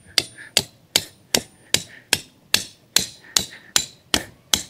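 A hammer striking a steel joining clip to drive it down over the seam between two strips of steel landscape edging. The blows come in a steady rhythm, about two and a half a second.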